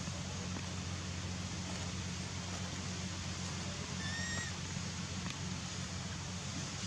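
A baby macaque gives one short, high squeak about four seconds in, over a steady hiss and low hum.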